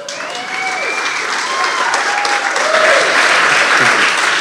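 Audience applauding at the end of a story, the clapping swelling over the first three seconds, with a few voices cheering over it.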